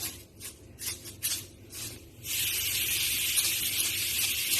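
A few short shaking rustles as Magic Sarap seasoning is shaken from its packet. About two seconds in, a steady high sizzle starts from chicken feet cooking in a pan without oil and keeps going.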